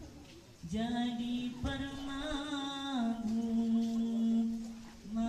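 A single unaccompanied voice chanting long held notes with small melodic turns and slow pitch steps. It pauses briefly at the start, then twice more with short breaths, and again near the end.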